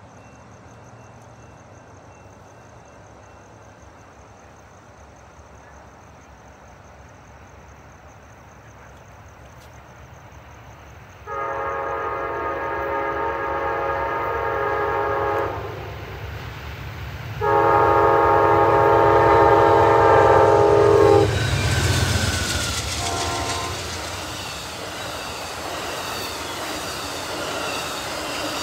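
An approaching Amtrak passenger train's locomotive horn sounds two long blasts and a short one, the opening of the grade-crossing signal, over a low rumble that grows as it nears. From about two-thirds of the way in, the bilevel Superliner cars rush past at speed with a steady roar and wheel clatter.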